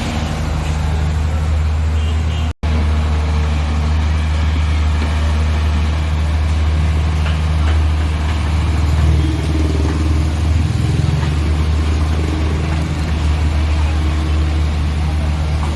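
Heavy diesel engine of loading machinery running steadily under work, a deep low hum with a slight rise in effort around the middle. The sound cuts out for an instant about two and a half seconds in.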